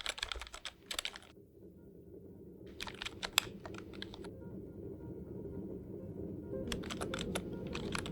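Typing on a computer keyboard in short bursts of clicks with pauses between them, over a low music bed that slowly swells.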